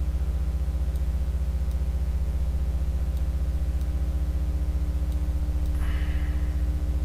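Steady low electrical hum with a buzzing stack of overtones, unchanging throughout, with a few faint ticks and a short soft hiss about six seconds in.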